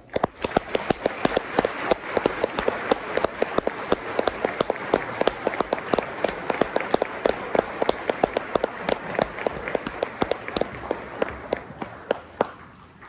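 Audience applauding, with one pair of hands clapping close by, loud and sharp above the rest. The applause dies away near the end.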